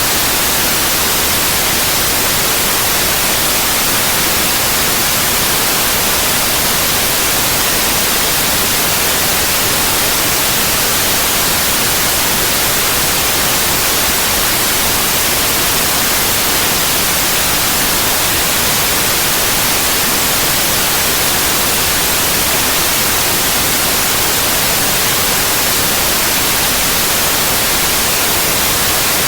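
Synthetic white noise: a steady, even hiss across the whole range, loud and unchanging throughout.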